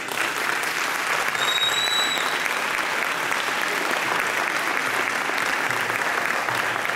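Audience applauding steadily after a youth choir's performance, with a brief high whistle about a second and a half in.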